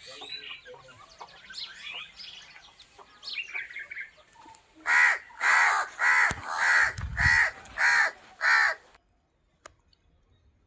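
A crow cawing about seven times in quick succession, loud harsh calls roughly half a second apart, after several seconds of softer small-bird chirping. The sound drops away suddenly after the last caw.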